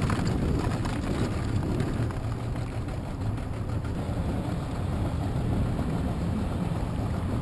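Steady low rumble of a small boat's motor running slowly as the boat creeps along a crab trotline.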